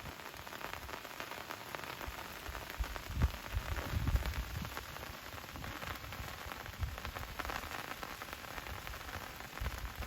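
Rain falling in a steady patter, with a few low thuds about three to four seconds in.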